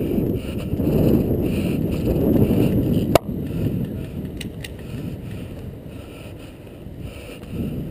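Low rumbling noise from wind and movement on the microphone that eases after about three seconds, with one sharp click about three seconds in and two fainter clicks about a second later.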